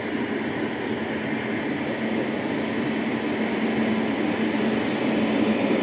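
Amrit Bharat Express passenger coaches rolling past on the rails, a steady running noise of wheels on track that grows slightly louder toward the end.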